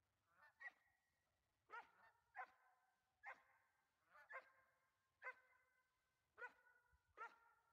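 Geese honking, faint and repeated, a call about every second.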